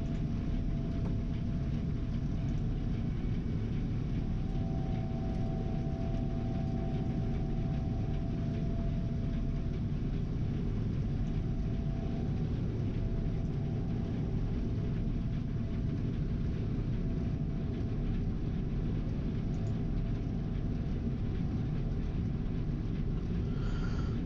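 Gleaner R72 combine running steadily while harvesting soybeans: a constant low drone with a faint, wavering whine above it.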